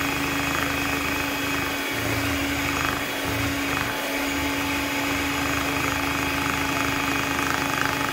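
Electric hand mixer running steadily, its twin beaters whirring through thick chocolate cake batter in a glass bowl, with a constant motor hum.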